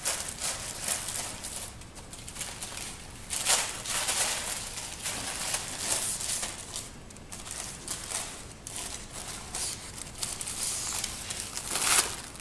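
Christmas wrapping paper on a small package crinkling and rustling in irregular bursts as a Jack Russell terrier noses and pushes it along the floor.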